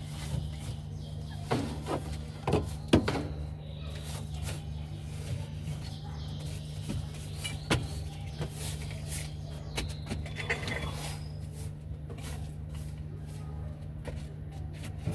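A steady low machine hum, with scattered knocks, clicks and scrapes, the sharpest about three seconds in.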